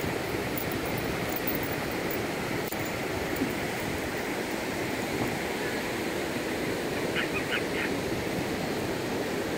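Ocean surf breaking on a sandy beach, a steady wash of noise, with a few faint short high-pitched sounds about seven seconds in.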